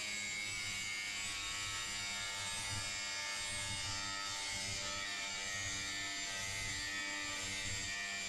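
Makita angle grinder with a cutting disc, slicing through thin stainless steel baseboard. The motor runs steadily under load, giving a continuous high whine and grinding hiss.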